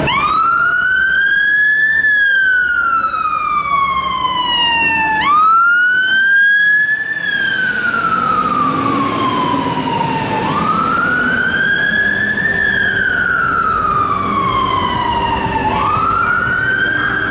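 Fire engine siren sounding a slow wail. Each cycle rises for about two seconds and falls for about three, repeating about four times.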